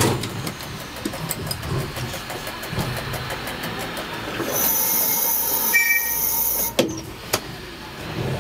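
ATM tram standing still, heard from its cab: a rapid ticking over a steady machine noise in the first half, then a high-pitched whine for about two seconds that cuts off with a sharp knock, and a second knock just after.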